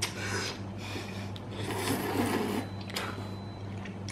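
A person slurping ramen noodles off chopsticks, in two or three noisy slurps.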